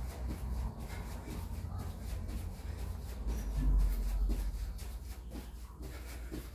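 Sneakered feet landing again and again on a tiled floor during jumping jacks: repeated thumps and scuffs in a steady rhythm.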